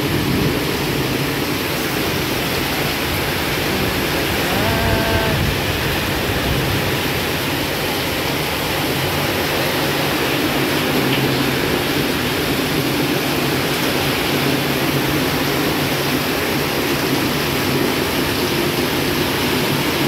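Heavy downpour of rain: a loud, steady, dense hiss of rain falling on the roof, trees and ground. A brief faint pitched sound stands out of it about five seconds in.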